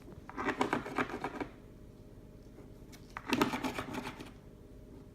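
A pet bird's beak crunching and working food in two bursts of rapid clicking, each about a second long, the second starting about three seconds in.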